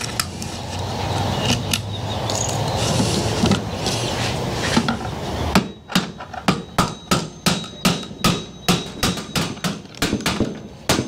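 A hammer strikes a steel punch again and again, about three blows a second, driving the pivot pin out of a trolling motor's mounting bracket. For the first few seconds, before the blows start, there is only a steady noise.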